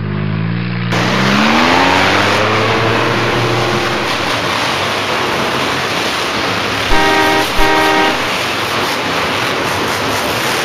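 A dubbed-in motor-vehicle sound effect: an engine revving up, its pitch rising over the first few seconds, then running on steadily. Two short horn honks come about seven seconds in.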